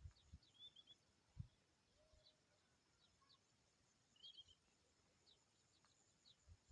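Near silence with faint small-bird chirps: short high twittering calls that come a few times, and a low thump about a second and a half in.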